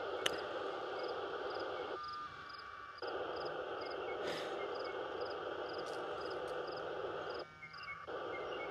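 Outdoor ambience: a short, high-pitched chirp repeating a few times a second over a steady hiss, with a single click about a third of a second in.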